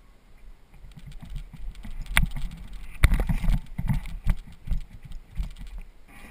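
Irregular low thumps and knocks, with two sharp clicks about two and three seconds in.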